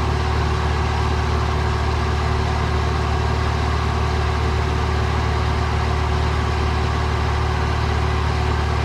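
Van's RV-9A light aircraft's piston engine and propeller droning steadily, heard inside the cockpit.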